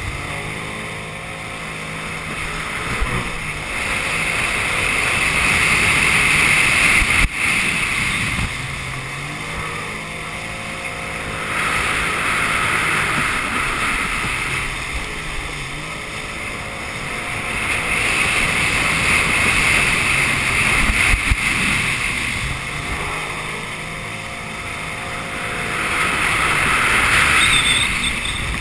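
Jet ski engine and water jet heard from on board while running at speed. The sound swells and eases about four times, with water and spray rushing past.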